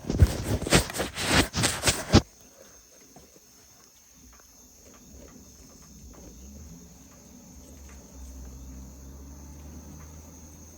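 A loud crackling, rustling noise for about the first two seconds, then insects, likely crickets, trilling steadily and faintly in the background.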